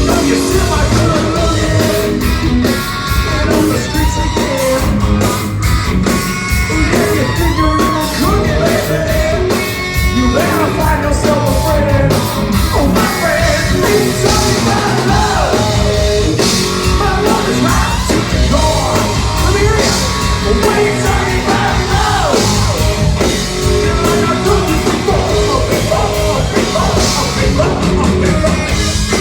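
A live rock band plays loudly: distorted electric guitar lines with bent notes over bass and drums.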